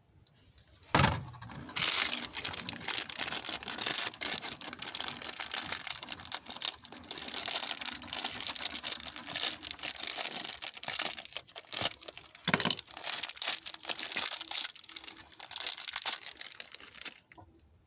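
Plastic packaging crinkling and rustling continuously as it is handled, with a thump about a second in and another about two-thirds of the way through.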